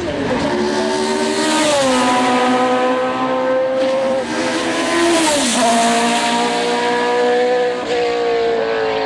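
Shadow DN1's Cosworth DFV V8 at high revs as the Formula 1 car accelerates past, its pitch stepping down sharply about three times at the gear changes.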